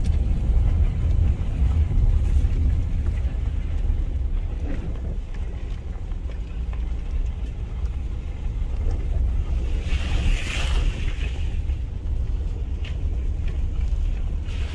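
Jeep Cherokee Trailhawk driving slowly along a dirt track, heard from inside the cab: a steady low rumble of engine and tyres. A brief hiss comes about ten seconds in.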